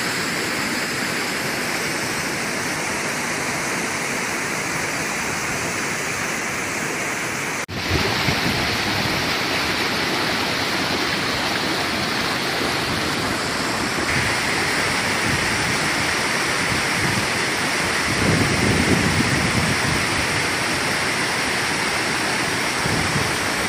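Water rushing over boulders in a rocky mountain stream and a waterfall: a steady rush of white water. It breaks off for an instant about eight seconds in and comes back louder and fuller.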